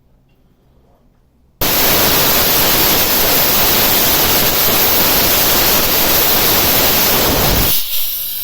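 A loud, even hiss of noise that starts abruptly about a second and a half in and cuts off sharply about six seconds later.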